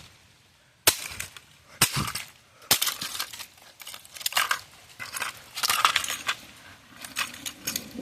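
A digital alarm clock being smashed apart: three sharp impacts about a second apart, then a run of cracking, crunching and clattering of its broken plastic and glass.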